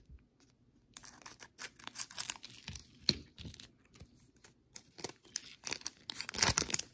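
A trading card pack's plastic wrapper being torn open and crinkled: a run of irregular crackles and rips, loudest near the end.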